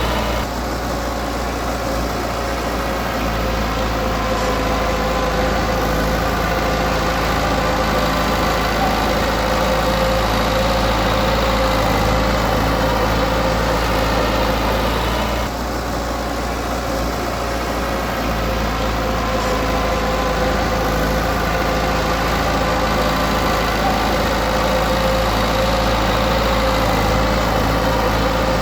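Diesel engine of a Komatsu D20P bulldozer running steadily while working, its sound easing off briefly twice, about half a second in and again about halfway through.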